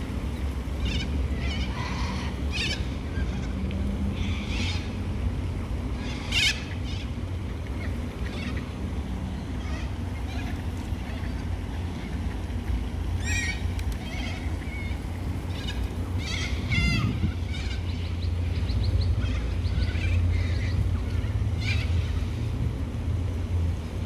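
A flock of white cockatoos giving short calls now and then, the loudest about six seconds in, over a steady low rumble.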